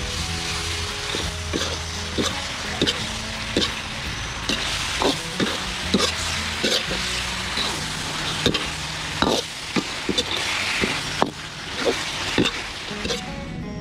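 Quail and vegetables sizzling in a wok as a metal ladle stirs them, with frequent clinks and scrapes of the ladle against the pan.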